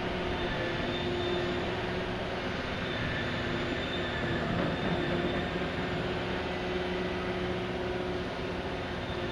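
Heavy diesel machinery running, a steady drone with a few faint held tones over broad noise: the engines and hydraulics of a Liebherr P995 backhoe dredger at work.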